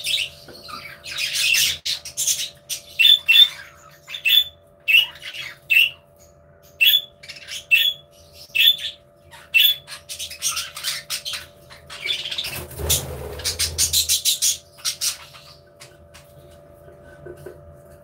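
A flock of budgerigars chattering, with short, repeated squawking chirps about one or two a second, thickening into a busier flurry about two-thirds of the way through and thinning out near the end.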